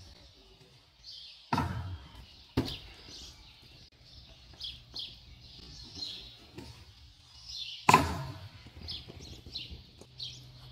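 A stunt scooter comes down hard three times as tricks are landed: two sharp clacks about a second apart, then a louder third one later. Birds chirp throughout.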